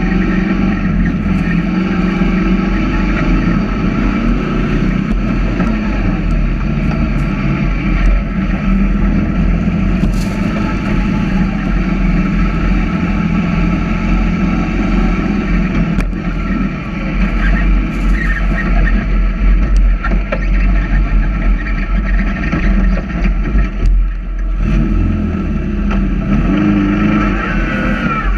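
Sand rail's 2.2 L Ecotec engine running hard while driving over dunes, its note rising and falling with the throttle, over a steady rumble of wind buffeting the onboard microphone.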